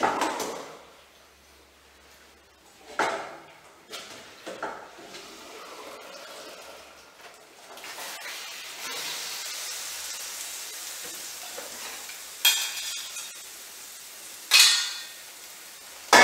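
Cooked spaghetti tipped from a metal pot into a frying pan of hot bolognese sauce, sizzling with a steady hiss from about halfway in. Metal pot and utensils clatter a few times at the start and clank twice near the end as tongs work the pasta.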